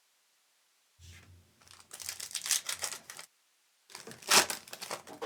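A foil trading-card pack wrapper from a 2023 Topps Chrome Cosmic hobby box being torn open and crinkled, in two stretches: one about two seconds in and another about four seconds in.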